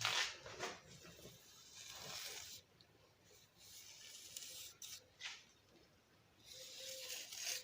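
Hand tool scraping wet concrete mortar, faint strokes coming in about five separate spells.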